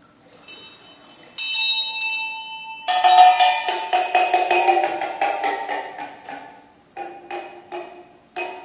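Struck metal percussion ringing: a high, chiming strike about a second and a half in, then a louder bell-like strike that rings on under a quick run of taps. Near the end come four separate short strikes.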